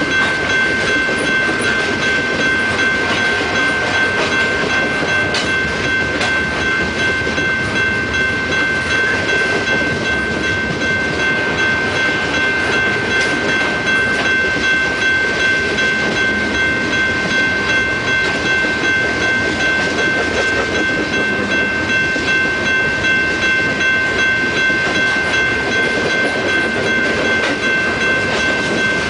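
Freight train of tank cars rolling past at steady speed: a continuous rumble of wheels on rail with faint clacks, and a steady high-pitched tone held over it.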